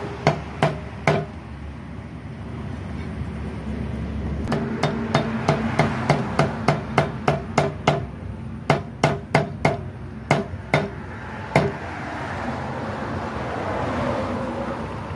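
Cleaver chopping a raw eel into pieces on a wooden chopping block: sharp knocks of the blade going through and into the wood. Three quick chops come in the first second, then after a pause a steady run of about three chops a second for several seconds, ending a few seconds before the end.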